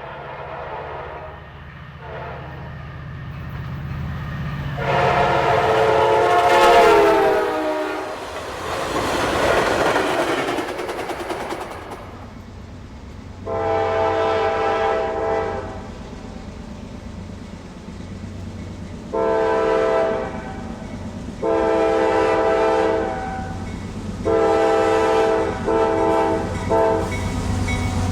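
Locomotive Nathan K5LA five-chime air horn sounding as a train passes, the chord dropping in pitch as it goes by, followed by the rumble and rail clatter of the passing train. Then four more blasts of the horn, the first three long and the last broken into short toots.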